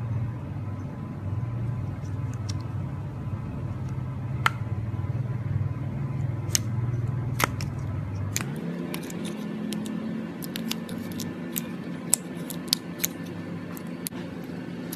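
Clear slime being pressed and squished by hand in a plastic container, giving scattered sharp clicks and pops that come more often in the second half, over a steady low hum.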